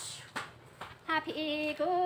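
A woman singing Hmong kwv txhiaj, traditional sung poetry: after a short pause she starts a long held note about a second in, stepping slightly up in pitch near the end.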